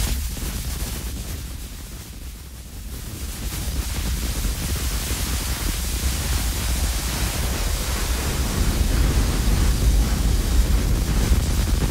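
Granular-synthesis output from the Granulizer plugin, a sample broken into a dense, hissy spray of grains over a heavy deep rumble. It thins out about two seconds in and swells back as the grain size and spacing settings are turned.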